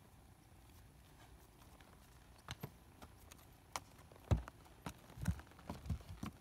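A horse's hooves knocking on the steps of a trail obstacle as he walks down them: a string of sharp, irregular clops starting a couple of seconds in, the loudest a little past the middle. The gelding is shod on his front feet.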